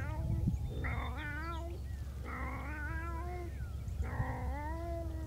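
Tomcat caterwauling: a series of long, wavering yowls, about one every second and a half, each lasting about a second.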